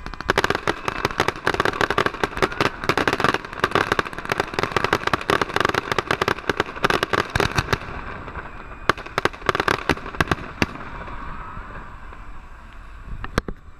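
Fireworks going off: a dense, rapid barrage of bangs and crackles for about eight seconds, then scattered single bangs, a fading crackle, and two last bangs near the end.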